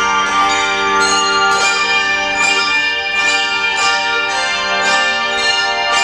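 A massed handbell choir playing a piece: many handbells struck together in chords, their tones ringing on and overlapping, with new chords struck roughly once a second.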